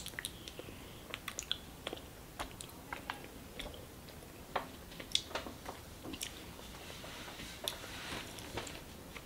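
Raw honeycomb being bitten and then chewed, heard as scattered short mouth clicks and smacks.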